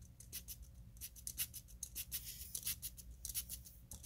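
Air blown by mouth through a carburetor's fuel inlet, hissing in a string of short, irregular bursts as the float needle valve opens and shuts; each flutter marks the valve closing off the flow.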